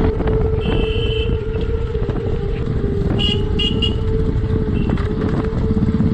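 Hero Xpulse 200's single-cylinder engine running steadily while riding off-road, with a motorcycle horn tooting once about a second in and twice in quick succession around three seconds in.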